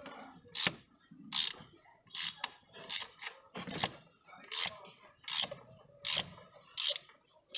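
Socket ratchet clicking in about ten short bursts, roughly one every 0.8 s, as it is swung back and forth to screw down the oil filter housing cap.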